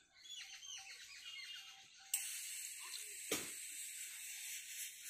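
Small birds chirping, then a steady hiss that starts suddenly about two seconds in, with one sharp click past the middle.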